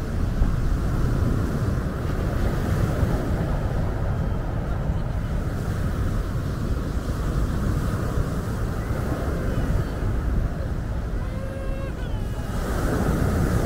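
Small sea waves breaking and washing up a pebble beach, a steady surf noise under a heavy low rumble of wind on the microphone. A wave swells louder near the end.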